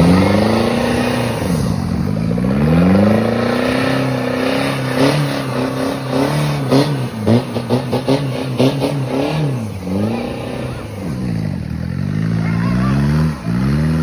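Off-road 4x4 vehicle's engine revving hard, its pitch repeatedly climbing and dropping as the throttle is worked. A quick run of sharp knocks comes over it in the middle.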